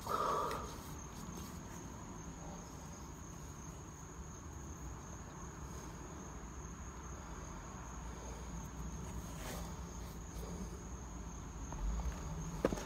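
Insects trilling in one steady, high, unbroken tone over a quiet outdoor background, with a short rustle right at the start and a small knock near the end.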